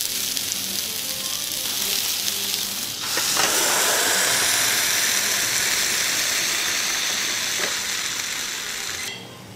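Croissant dough sizzling on the hot waffle plates of a Cuisinart 5-in-1 Griddler: a steady hiss that gets louder about three seconds in as the lid is pressed down on it, then cuts off suddenly near the end.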